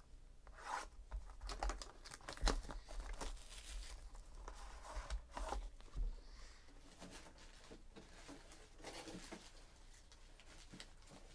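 Wrapping on trading-card packs being handled by hand: short bursts of crinkling and tearing, with a couple of soft knocks on the table, the loudest about two and a half seconds in and again at six seconds.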